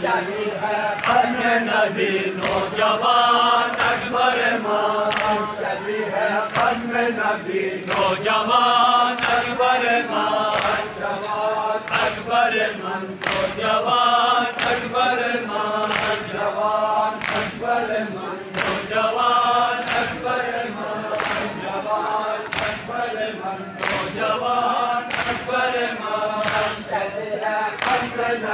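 A male noha reciter chanting a mourning lament into a microphone, with a group of men singing the refrain along with him. Under the singing, hands slap on chests (matam) in a steady beat.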